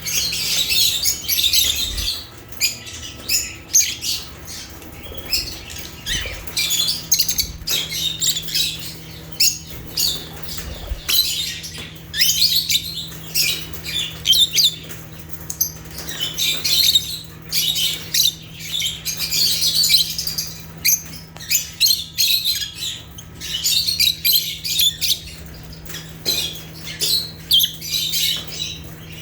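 A group of lovebirds chirping and squawking continuously in fast, overlapping high-pitched calls, with a faint steady hum underneath.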